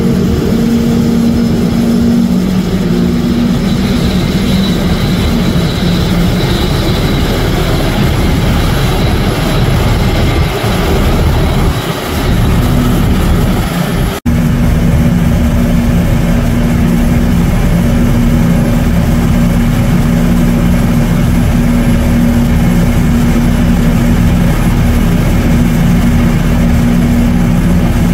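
Boeing 777-200ER's twin jet engines running at taxi power: a loud, steady drone with a low hum. The sound drops out for an instant about halfway through.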